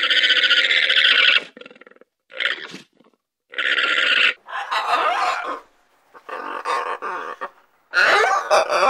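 Llama calling in a series of rough calls, one long call first and then several shorter ones. About eight seconds in they give way to a blue-and-yellow macaw's squawks.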